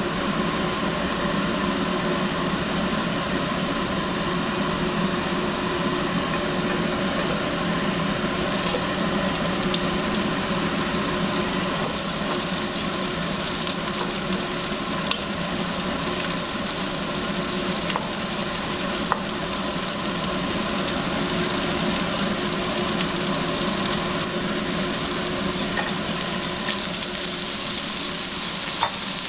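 Food frying in a hot pan: a steady sizzle with a few faint ticks, over a low hum.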